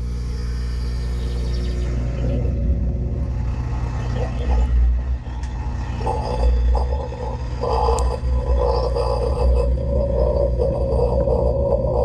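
Dishwasher running, heard from inside the tub: a steady low hum from the wash motor and pump, with water spray splashing against the racks and walls. The splashing grows louder and more continuous from about halfway through.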